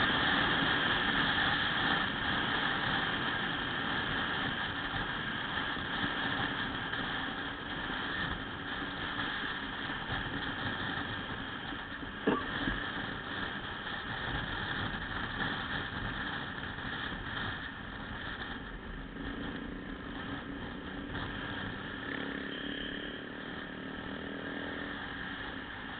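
Small motorcycles running at cruising speed, engine hum mixed with wind and road noise, steady and slowly fading over the stretch. A single sharp click about halfway through.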